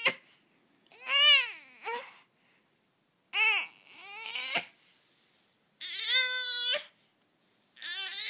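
Baby fussing while lying on her tummy: about four short, high-pitched whiny cries, each rising then falling in pitch, with short quiet gaps between them. She is frustrated, or "mad", at being stuck face down.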